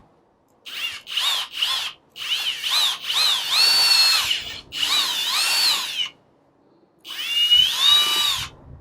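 Kobalt 24-volt brushless cordless drill pre-drilling a centre hole for the doorbell wire. It runs in a series of short bursts, the motor whine rising and falling in pitch as the trigger is squeezed and eased, with the longest run in the middle.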